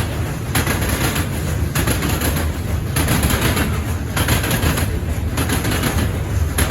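Freight train rolling past: potash hopper cars give rhythmic bursts of wheel clatter about once a second over a steady deep rumble. The rumble grows near the end as the train's mid-train GE ES44AC diesel locomotive comes up.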